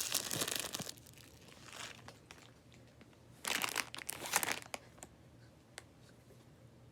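Packaging crinkling as it is handled and pulled open, in two bursts: one in the first second and another lasting about a second, a little past the middle.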